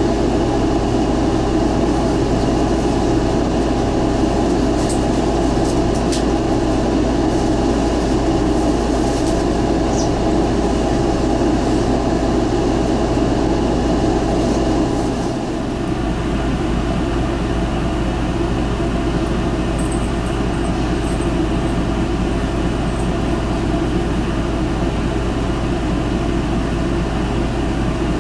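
Steady running noise of a bus heard from inside the cabin: the engine and cabin machinery, with a slight drop in level about halfway and a few faint clicks.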